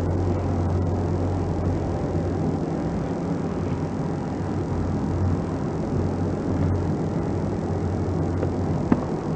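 A steady low hum under an even hiss, with one sharp click near the end.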